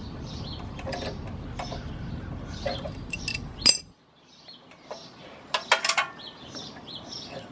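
Small metal parts of a pressure-washer unloader valve, the nut and spring, clinking as they are taken off by hand: one sharp clink about halfway and a quick cluster of clinks near six seconds. Birds chirp in the background throughout.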